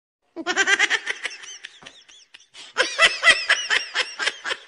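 High-pitched laughter in quick repeated bursts. One run starts about half a second in, a short pause follows, and a second run begins near the middle.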